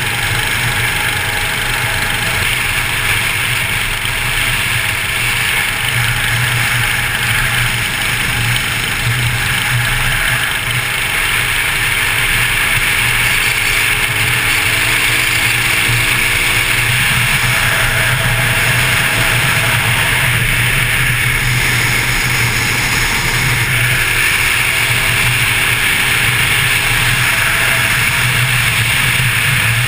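Motorcycle engine running at steady cruising speed under heavy wind rush on the bike-mounted microphone. Faint rising engine notes come through twice, in the middle and later on.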